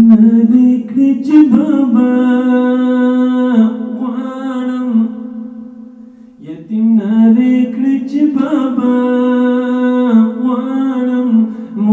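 A voice singing a Pashto naat, a devotional chant, in long held notes. The first phrase eases off about four seconds in and a new phrase begins about six and a half seconds in.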